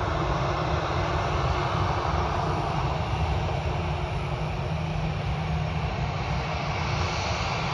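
Airbus A319's CFM56 turbofan engines running at low taxi thrust as the airliner rolls slowly and turns on the runway: a steady, even engine noise.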